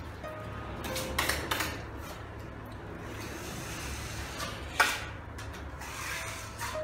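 Metal putty knives scraping wet plaster filler: a few short scrapes as filler is taken off one knife with the other and spread on the wall, with a sharper click about five seconds in.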